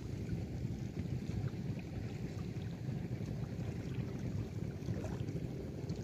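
Wind noise on the microphone, with river water lapping.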